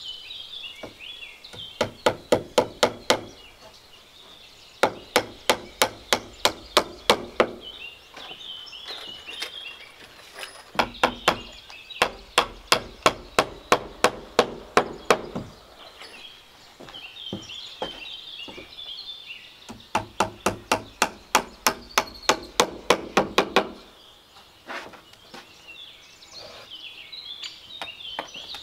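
Hammer striking wood in four runs of quick, even blows, about four a second, with short pauses between the runs.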